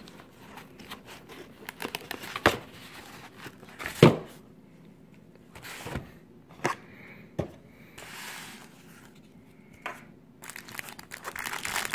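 Cardboard box and white foam packing inserts being handled while a mini projector is unpacked: rubbing and scraping with several short knocks, the loudest about four seconds in, and plastic wrap crinkling near the end.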